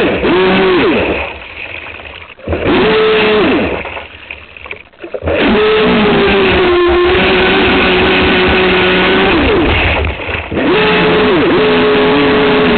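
Aquacraft SV27 RC boat's electric motor whining at full throttle over water and hull noise, heard from a camera mounted on the boat. It runs in bursts whose pitch rises as the throttle opens and falls as it closes, with two throttle-off lulls in the first half and a long steady run after.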